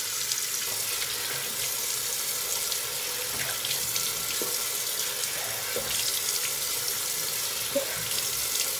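Bathroom sink tap running steadily while hands splash water over a face, rinsing off a foaming cleansing mask.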